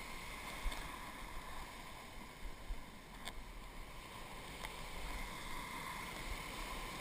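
Shallow surf washing and fizzing around a surf boat, with low wind rumble on the microphone and a couple of faint clicks.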